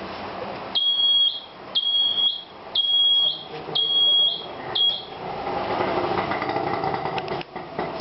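A machine's electronic buzzer beeps five times, about once a second. Each beep is a steady high tone about half a second long, and the last is shorter. A steady machine hum follows.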